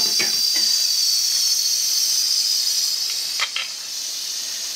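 Pressure cooker on the stove venting steam: a steady high hiss. Two light clicks come about three and a half seconds in, after which the hiss is a little quieter.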